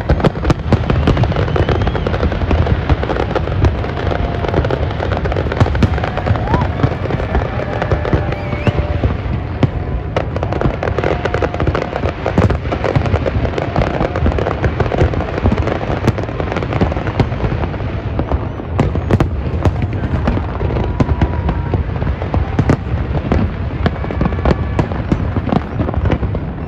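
Large aerial fireworks display: a dense, unbroken barrage of shells bursting, with booms and crackle overlapping and no pauses.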